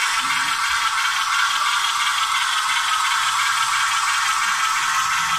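HO-scale Bachmann model diesel locomotive running on its track, heard as a steady, tinny rattle and whir with almost no low end.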